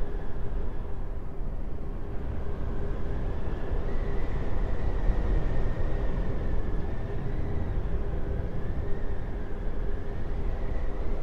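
A steady low rumble with a faint high tone that wavers slowly up and down above it.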